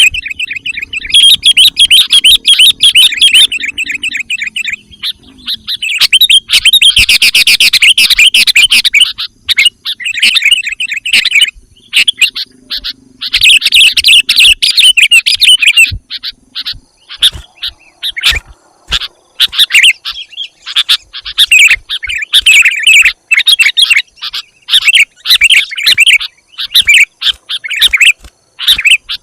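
Sooty-headed bulbuls calling loudly in fast, chattering bursts of bubbly notes, the densest stretches coming in three long runs in the first half, then shorter broken phrases.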